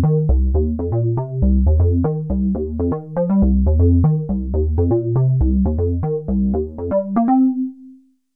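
Cherry Audio DCO-106 software synthesizer, an emulation of the Roland Juno-106, playing a fast run of short, plucked-sounding notes over a pulsing bass line, recorded dry. The pattern stops about seven seconds in on a single held note that fades away.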